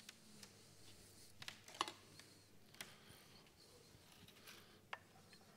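A few faint, sharp clicks and taps from handling while a dish is being garnished on a steel counter, about five in all, the loudest about two seconds in, over near silence.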